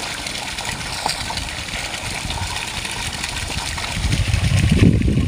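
Steady rush of running water, with a low rumble that grows louder in the last second or so.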